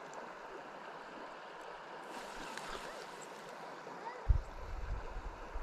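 Steady rush of flowing river water, with low thumps and rumbles on the camera microphone starting about four seconds in.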